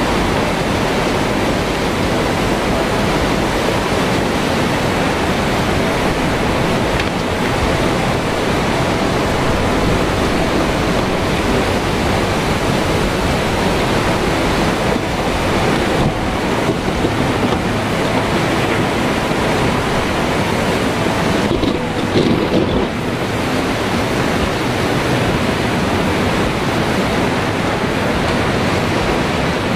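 Churning floodwater surging and rushing: a loud, steady wash of water noise with wind buffeting the microphone. There is a short, louder, rougher patch about three-quarters of the way through.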